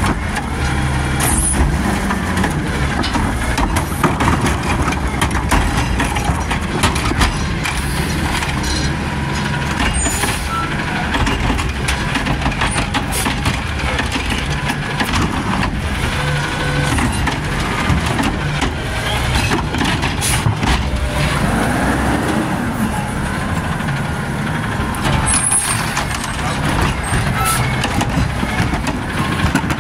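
Garbage truck's diesel engine revving hard and loud, driving the packer hydraulics, with short sharp hisses and clanks over it.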